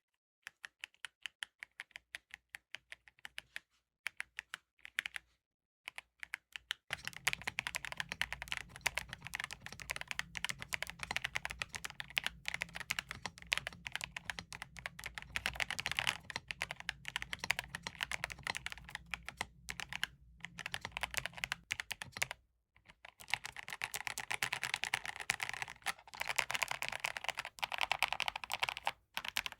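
Typing sound test on a mechanical keyboard with KOA-profile keycaps and Redragon Ink Pink switches in the most-used keys. It starts with single keypresses, about four a second, then about seven seconds in turns to fast continuous typing, with a brief pause about 22 seconds in.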